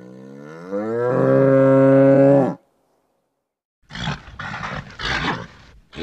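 A bull bellowing: one long call that rises in pitch and swells to its loudest, then cuts off about two and a half seconds in. After a second's pause come several rough, noisy grunts in quick succession.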